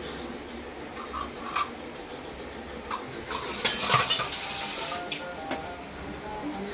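Butter melting in an aluminium pot over a gas flame, sizzling and crackling as its water boils off, with a few sharp metal clicks. The crackling is densest around the middle.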